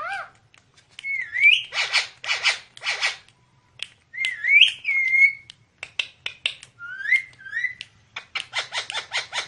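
Indian ringneck parakeet whistling short notes that rise and fall, alternating with runs of rapid raspy sounds and a few sharp clicks.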